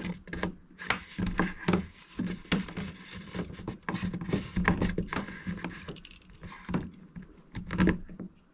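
Handling noises: a power cable rubbing and knocking as it is fed through a drilled hole in a plastic kayak deck, with irregular taps and clicks and a louder knock near the end as a plastic connector socket is set over the hole.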